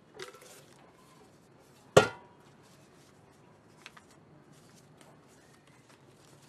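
A small hard container clacks sharply once about two seconds in, with a short ring after it, as it is knocked or set down while being handled. A faint click follows a couple of seconds later, with soft handling sounds of paper banknotes.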